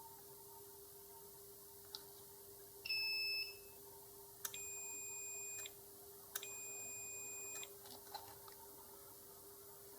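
Multimeter continuity beeper sounding three times: a short beep about three seconds in, then two longer beeps of about a second each, as the probes bridge the relay contacts; a beep means the contact is closed. Faint clicks of the probes touching the board come between the beeps.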